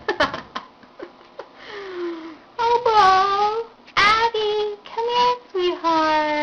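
Cat yowling: a run of long, drawn-out, wavering yowls that turn louder about two and a half seconds in.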